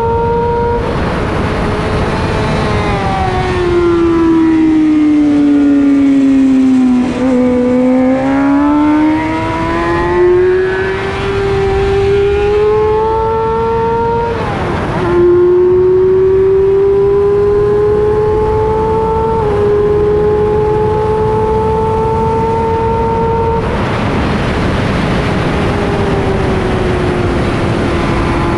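Onboard sound of a racing sport bike's engine at high revs: its pitch sinks for several seconds as the bike slows, then climbs under acceleration, drops sharply at an upshift about halfway through and dips slightly again a few seconds later. Heavy wind rush over the microphone swells near the end.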